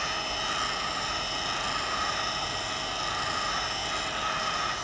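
Heat gun blowing steadily: a continuous rush of air with a fan whine, heating the phone to soften the adhesive.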